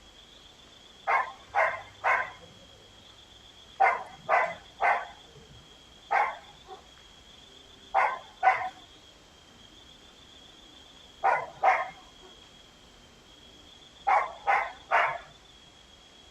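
A dog barking in short runs of two or three barks about half a second apart, with a run every few seconds. A faint steady high-pitched tone runs underneath.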